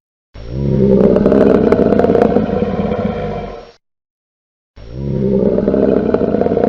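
Monster roar sound effect of a bogeyman: a deep, growling roar about three seconds long that swells up in pitch at the start and fades out. About a second later a second roar begins the same way.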